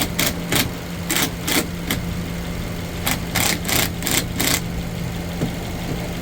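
Subaru Impreza engine idling steadily under the hood while a hand tool clicks in short rapid bursts, about three a second, in two runs, loosening a 10 mm battery nut.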